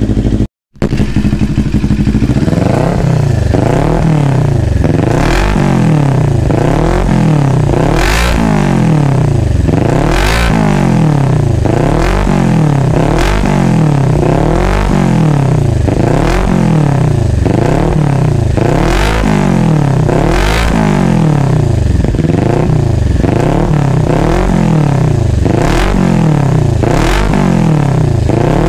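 CFMoto 400NK's parallel-twin engine, breathing through a newly fitted Akrapovič muffler with twisted elbow pipe and resonator, idling and then, from about two seconds in, revved up and down over and over, about once every one and a half seconds.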